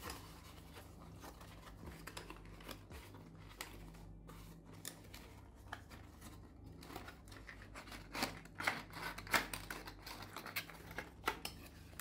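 Cardboard and plastic packaging of a retail CPU box being handled and unpacked: faint scattered rustles and small clicks, busier in the last few seconds.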